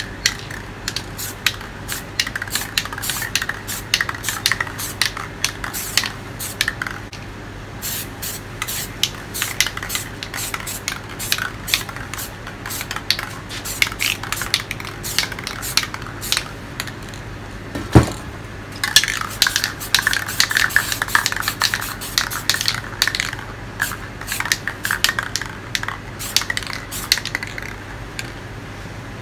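Aerosol spray-paint can hissing as it sprays, full of short crackling spits, with one sharp knock about 18 seconds in.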